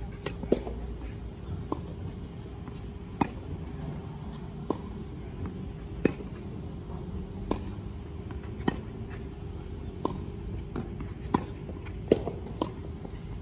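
Tennis rally: a serve, then racket strikes on the ball at a steady pace, about one every one and a half seconds, with the near player's hits loudest and the far player's fainter. A steady low hum runs underneath.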